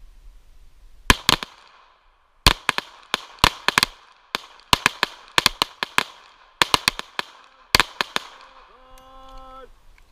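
Pistol shots fired in quick, irregular strings, about two dozen cracks in seven seconds, each with a short echo. Near the end, a brief steady tone lasts under a second.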